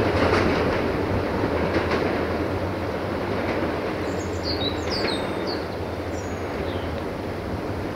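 Diesel train running past and slowly moving away, its wheels clicking over the rail joints early on and its rumble steadily fading. Birds chirp briefly around the middle.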